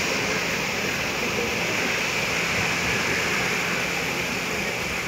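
Small waves washing onto a sandy beach, a steady hiss of surf, with a faint low steady hum underneath.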